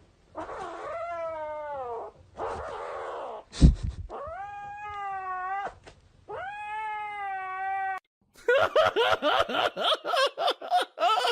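Domestic cat caterwauling in long drawn-out yowls: the first sliding down in pitch, then two held steady, with a sharp knock between them about three and a half seconds in. Near the end come rapid, choppy shorter cries.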